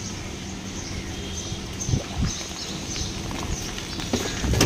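A few soft knocks and clicks over steady background noise, from hands handling a scooter's wiring harness: one pair about two seconds in and more near the end.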